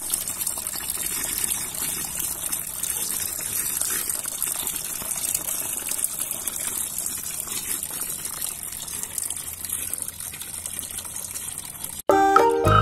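A thin stream of water pouring into shallow water in a plastic pool, splashing and bubbling steadily as the pool fills. The sound stops abruptly near the end, and music starts.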